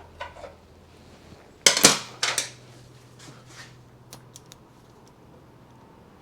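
Small loose steel ball bearings from a motorcycle steering head clinking as they are taken out. There are a few light clicks, two loud metal clatters about two seconds in, then a few faint ticks.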